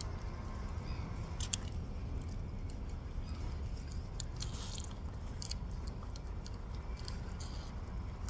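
Scattered small clicks and wet handling sounds of a hook being worked out of a snapper's throat, over a steady low rumble.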